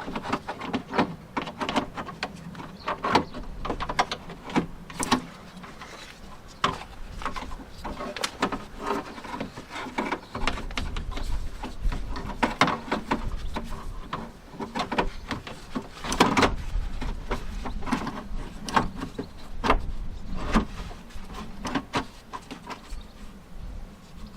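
Irregular clicks, knocks and small metallic rattles of hands and tools working the lock mechanism inside a Land Rover Discovery 2 rear door. A low rumble joins about halfway through.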